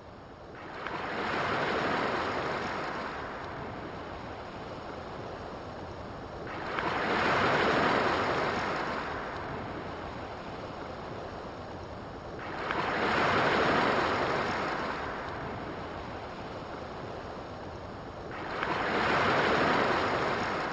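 Ocean surf: four waves swell up and slowly wash back about six seconds apart, with a steady hiss of water between them.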